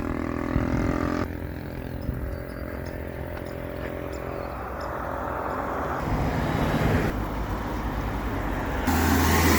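Car engine and tyre noise while driving, a steady low hum under road noise, growing louder and fuller near the end.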